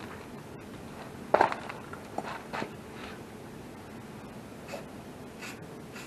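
Aerosol spray paint can hissing in several short bursts, with a sharp knock about a second in.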